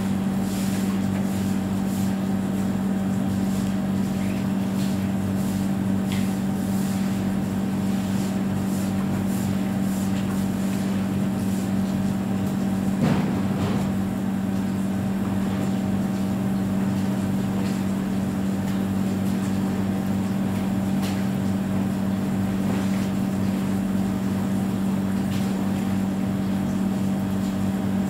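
Steady motor-driven machine hum with a low, even tone, running without change, with a few faint clicks and one brief louder knock about 13 seconds in.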